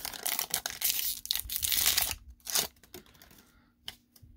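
Foil Pokémon booster pack wrapper being torn open and crinkled by hand, a dense crackling tear lasting about two seconds, followed by a few short rustles as the cards come out.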